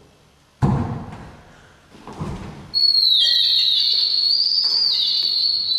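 Two dull knocks, then from about three seconds in a loud high-pitched whistling tone that holds and steps up and down in pitch.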